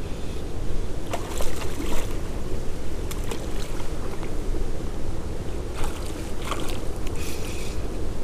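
Steady wind rumble on the microphone, with short splashes from a hooked brown trout thrashing at the surface and a few sharp knocks.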